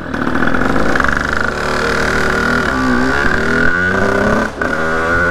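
Sherco 50cc two-stroke motorcycle engine and exhaust running at high revs under way, a loud buzzing note that dips about three seconds in and picks up again.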